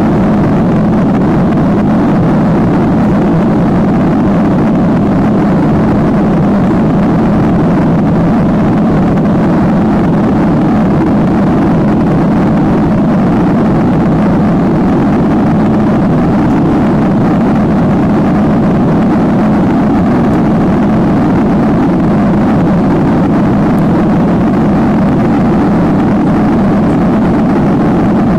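Steady, deep cabin noise of a Boeing 737-800 climbing out after takeoff: the drone of its CFM56 turbofan engines and the rush of air past the fuselage, heard from inside the cabin.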